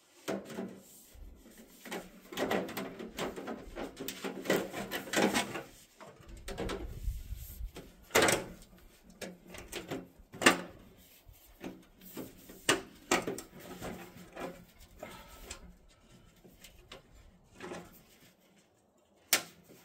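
Metal chimney pipe sections scraping, rattling and knocking as the new section is forced onto the old one, which resists because the pipe is not perfectly round. A dense run of scraping in the first few seconds, then a string of separate sharp knocks.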